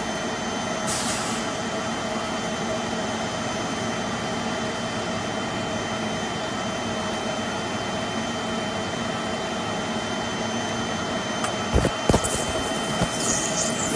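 Steady machine hum with a faint steady whine, typical of the suction and steam equipment at a stain-removal bench. A short hiss comes about a second in, and a few light knocks near the end as a tool works on the silk.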